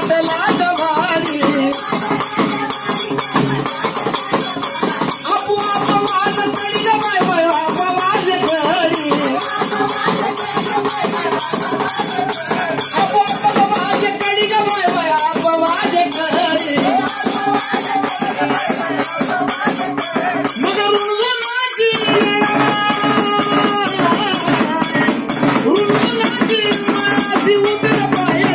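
Live Marathi devotional song: a voice singing a melodic line over fast, steady jingling hand percussion. The accompaniment thins out briefly about three-quarters of the way through, then carries on.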